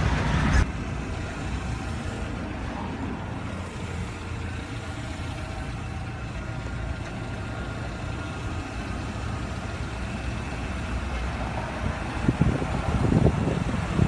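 Steady low rumble of a motor vehicle running nearby, with a short loud burst of microphone rustle at the start.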